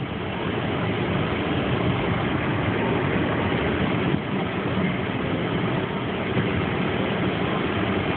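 Car engine running steadily under throttle as the driver tries to reverse out of deep snow in which the car is stuck.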